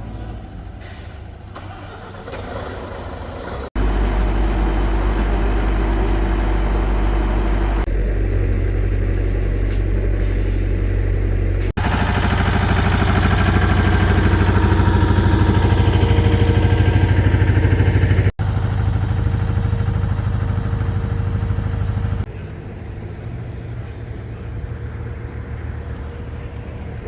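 Diesel engines of heavy road-repair machinery and trucks running, with a deep steady rumble and a brief hiss like an air brake. The sound jumps at several hard cuts and is loudest in the middle.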